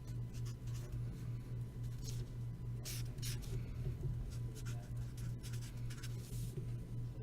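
Writing on paper: irregular short scratchy strokes as names on a list are crossed out and written in, over a steady low hum.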